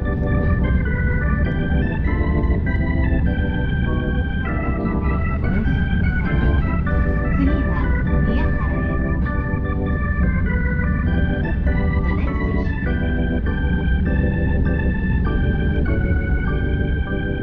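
Background music with an organ-like keyboard sound, a melody of held notes changing about every half second, over a steady low rumble.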